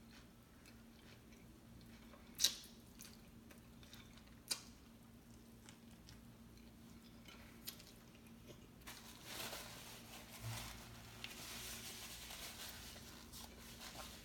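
A person chewing a homemade sub sandwich. There are two sharp clicks in the first few seconds, and the chewing is louder over the second half.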